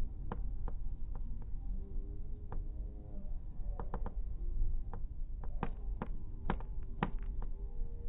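Steady low rumble of a moving vehicle, with wind on the microphone, and a scatter of sharp clicks and knocks, thickest and loudest between about five and seven and a half seconds in.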